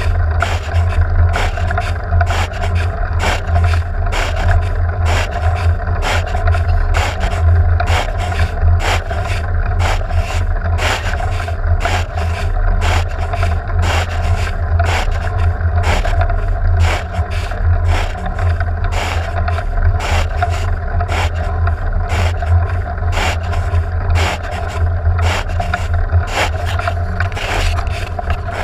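Vehicle driving in rain, heard from inside: a steady low engine and road drone, with frequent short, sharp scraping knocks on top.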